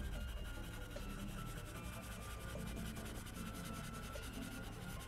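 Black Sharpie permanent marker scrubbing over marker paper in small circles, a steady scratchy rubbing as it lays in solid black.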